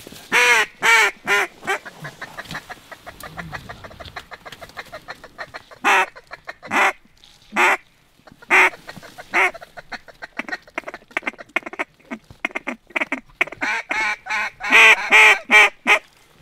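Mallard duck call blown close at hand, calling to a flock of circling mallards. It gives runs of loud quacks with stretches of fast quacking chatter between them, and the loudest run comes near the end.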